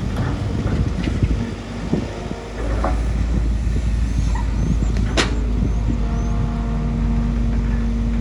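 Bulldozer's diesel engine running under work, growing louder about two and a half seconds in, with a few knocks and a single sharp crack about five seconds in.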